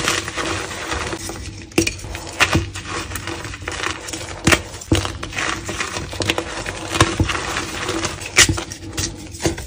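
Hands crushing and crumbling blocks of dyed gym chalk: a string of irregular crisp crunches and snaps, with a gritty crackle of powder between them.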